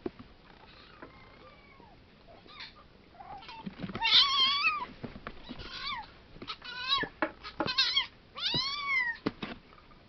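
Domestic cats meowing: a quiet first few seconds, then about five meows over the second half, the first and last drawn out and sliding in pitch.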